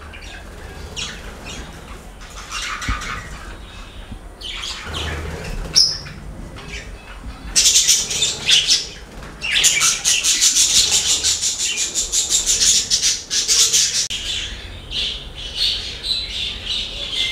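Caged pet birds chirping and squawking: a chatter of many short, high calls that grows denser and louder from about halfway through.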